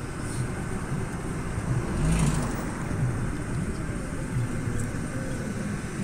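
Steady road noise of a moving vehicle, a low rumble with hiss above, and a brief louder rush about two seconds in.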